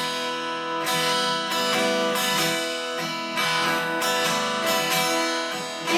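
Acoustic guitar strummed in a slow rhythm, its chords ringing, in an instrumental gap of a song.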